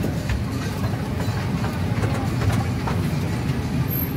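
Miniature amusement-park ride train rolling along its track: a steady low rumble with scattered sharp clicks from the wheels and track.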